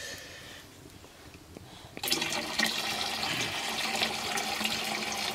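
Milky white liquid poured from a pot into a metal vessel: a steady stream of pouring and splashing that starts about two seconds in.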